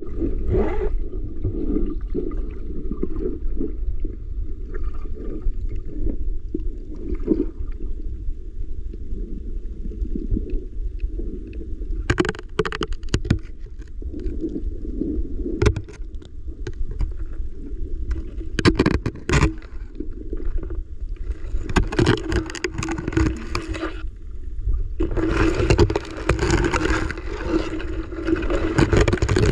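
Muffled underwater sound picked up by a submerged GoPro: a steady low rumble of moving water. A few sharp clicks and knocks come around the middle, and louder hissing stretches with a low hum come in the last third.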